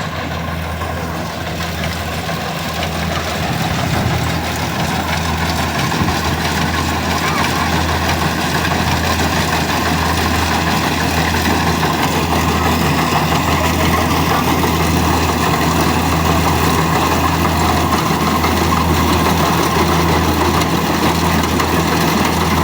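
Kubota DC-70 combine harvester's diesel engine and machinery running steadily, with the noise growing a little louder about four seconds in.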